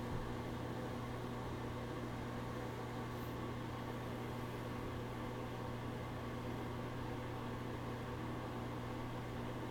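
Steady low mechanical hum with a faint hiss, like an electric fan or motor running in a small tiled room.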